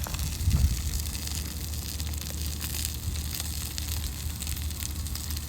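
Wind rumbling on the microphone outdoors, a steady low rumble with hiss and faint crackle.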